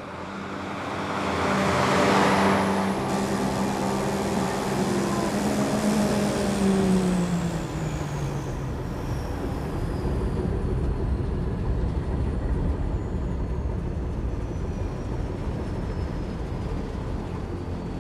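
Motorboat speeding past: its engine note swells and then drops in pitch as it goes by, followed by a steady low engine rumble.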